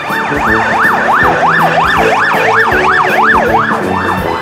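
Ambulance siren on a fast yelp, a rising-and-falling wail repeating about three times a second, loud as the ambulance passes close by.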